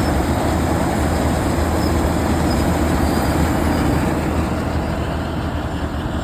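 Wirtgen cold milling machine running steadily, a dense heavy rumble that eases slightly near the end.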